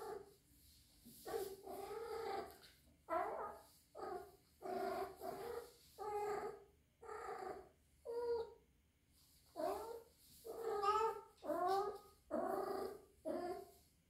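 Young female kitten, about three months old, calling over and over in short, bending yowls, about a dozen in quick succession. This is heat-like calling, which the owner suspects is her first heat.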